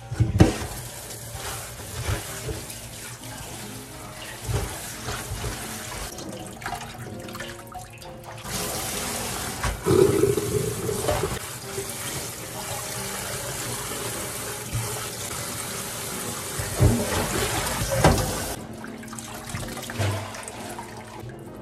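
Kitchen tap running into a stainless steel sink, pouring over spinach in a metal colander for about ten seconds, starting about eight seconds in. Scattered knocks of the metal colander and bowl against the sink come before, during and after.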